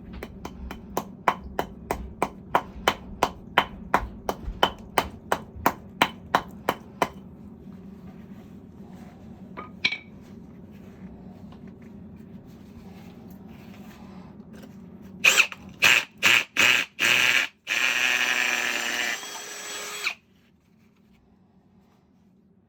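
A hammer striking steadily, about three blows a second for some seven seconds. Later a hammer drill starts in several short bursts, then runs for about two and a half seconds and stops.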